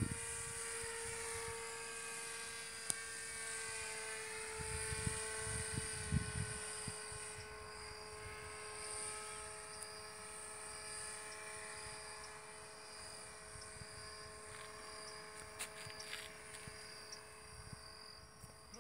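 Small motor and propeller of a radio-controlled model paraglider (paramotor) buzzing steadily as it flies overhead. Its pitch bends slightly a few seconds in. Low thumps of wind on the microphone come about five to seven seconds in.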